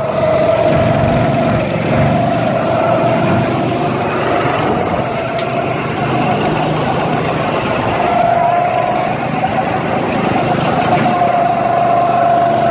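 Go-kart engines running at speed, a steady droning engine note that lifts a little about eight seconds in.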